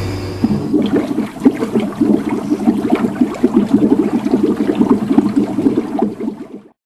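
Rinse nozzle of a Herkules waterborne paint-gun washer spraying water into the wash tub, an uneven splashing that cuts off near the end. The agitator's steady hum stops about half a second in, as the rinse spray starts.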